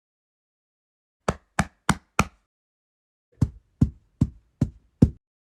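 Foley effect of short, sharp hits: four quick ones about a third of a second apart, then after a pause five heavier, deeper-sounding ones at a slightly slower, even pace.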